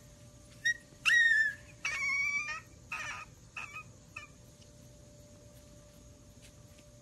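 Sleeping husky puppies whimpering and giving short high-pitched howls. About half a dozen cries come in the first four seconds, the loudest a rising howl about a second in.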